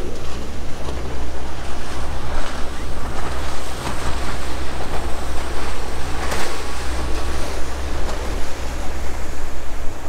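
Wind buffeting the microphone: a steady low rumble under a rushing hiss, with one brief louder gust about six seconds in.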